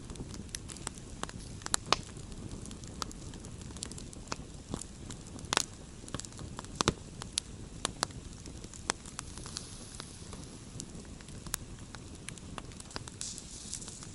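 Wood campfire crackling: irregular sharp pops and snaps, a few louder than the rest, over the steady low noise of the burning fire.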